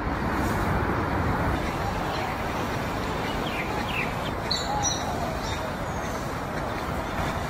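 A few brief, faint bird chirps over a steady outdoor background hiss and rumble.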